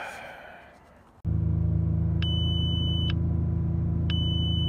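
2007 Audi Q7's 3.6 VR6 engine held steady at about 3000 rpm, starting suddenly about a second in. The instrument cluster sounds two high warning beeps about two seconds apart. This is the low oil pressure alert, which a replacement oil pressure switch has not cured.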